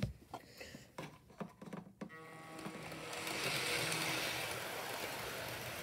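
Hornby Class 101 model diesel multiple unit running on its track: a few clicks and knocks in the first two seconds, then the model's small electric motor whirs up with a steady hum and wheel rattle, growing louder as the train passes close by about four seconds in.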